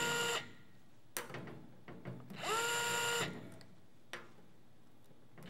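Cordless electric screwdriver running in short runs of about a second, each spinning up in pitch and then holding a steady whine, as it backs out loose screws. There are a couple of light clicks between runs.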